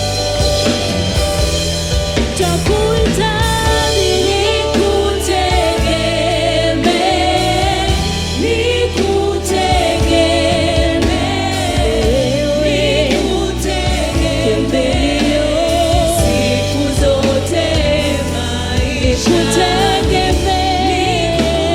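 Gospel worship song: voices singing a wavering melody over band backing with a steady bass line.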